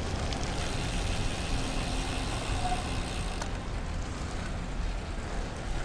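Road bike rolling on wet pavement: a steady hiss of tyres on the wet road over a low wind rumble on the microphone.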